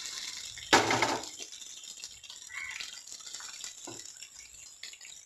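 Indian mackerel pieces shallow-frying in hot oil in a non-stick pan, sizzling steadily, while a wooden spatula moves and turns them. There is one louder burst about a second in.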